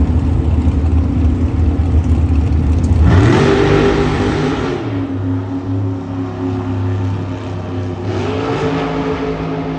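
Two Super Gas drag cars' engines running loud at the starting line, then revving up and launching down the track. The engine note climbs about three seconds in, drops back a little before five seconds, and climbs again just after eight seconds.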